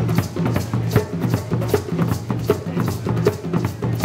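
Several djembe-style hand drums played together in a fast, steady rhythm: sharp slaps over deep bass tones.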